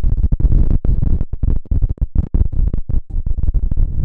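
Background music with a heavy bass, choppy with many short breaks.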